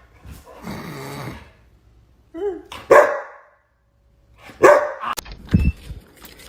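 A dog growls, then barks loudly a few times, with a low thump near the end.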